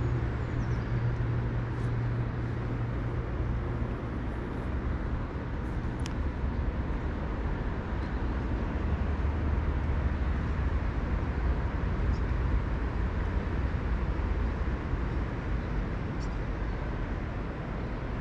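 Small boat's motor running with a steady low hum, which dips slightly in pitch a few seconds in, over water and wind noise.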